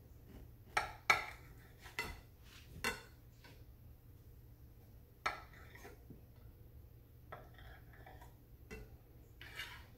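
Knife blade clinking and scraping against a plate while slicing through a cake. There are a few sharp clinks in the first three seconds, the loudest just after one second, then a handful of fainter taps.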